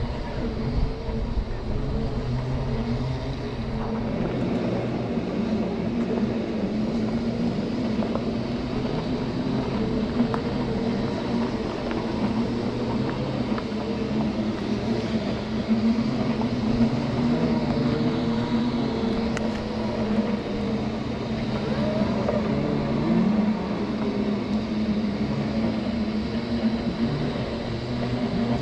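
Segway x2 self-balancing scooter's electric drive whining as it is ridden over grass, the pitch wavering up and down with speed. Wind rumbles on the microphone, most in the first few seconds.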